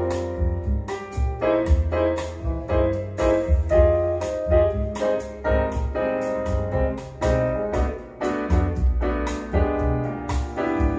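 A jazz recording with piano over a pulsing bass line, played through a pair of Klipsch R-51M bookshelf speakers.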